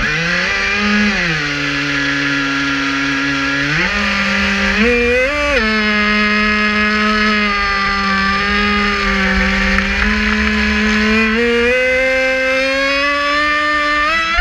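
Traxxas Spartan RC boat's brushless electric motor running under way, a loud whine whose pitch follows the throttle. It dips about a second in, jumps up twice around four and five seconds in, then holds and slowly climbs near the end.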